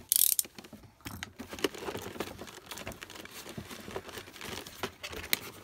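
Clear plastic blister packaging and a cardboard toy box being handled, crinkling and rustling. A short loud rasp comes right at the start, followed by scattered light clicks and taps.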